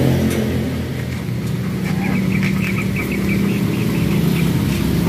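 A motor engine idling steadily. Partway through there is a quick run of faint high-pitched ticks, about six a second.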